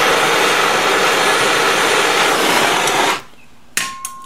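Handheld MAP gas torch burning with a steady hiss as it warms a seized stud in an aluminium wheel hub; the flame is shut off about three seconds in and the hiss stops suddenly. A sharp clink that rings on briefly follows near the end.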